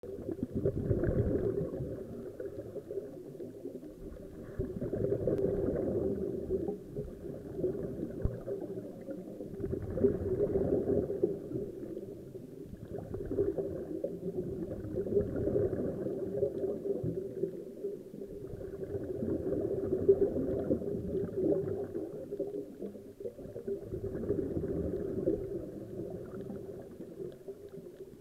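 Scuba divers' exhaled air bubbling out of their regulators underwater. It comes as a rush that swells and fades every four to five seconds, in time with slow breathing.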